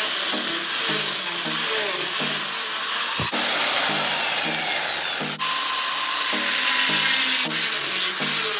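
A handheld power tool running continuously, its sound shifting a little about three seconds in and again about five seconds in, over background music with a repeating pattern.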